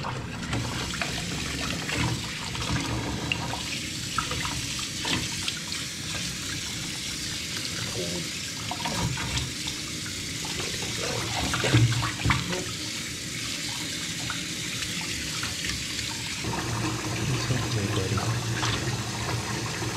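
Kitchen faucet running into a stainless steel sink, water splashing as a puppy is rinsed under it, with a few brief knocks; the loudest is about twelve seconds in.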